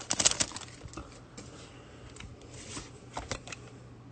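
Foil Pokémon booster-pack wrapper crinkling briefly at the start, then the soft rustle and flicks of trading cards being slid out of the pack and handled.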